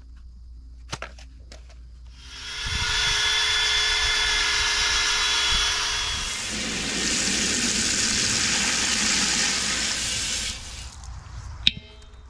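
A DeWalt power tool spins up about two seconds in with a steady motor whine, and from about six seconds runs harsher as it scours rust off a cast iron pot. It stops near the end, followed by a single sharp knock.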